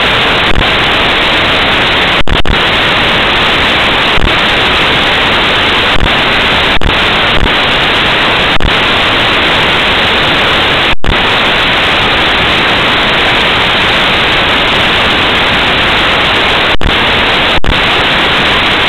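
Loud, steady static hiss with no other sound in it, broken by a few brief dropouts: a fault in the recording's audio track rather than any sound in the room.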